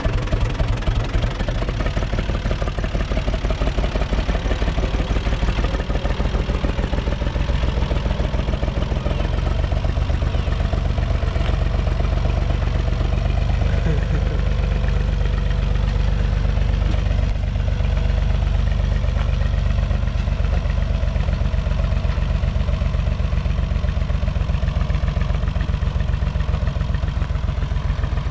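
UTB 445 tractor's diesel engine running steadily with a rattle, pulling a wooden trailer in third gear, low range. About nine seconds in the higher part of the sound drops away, leaving a deeper, even beat as it is heard from farther off.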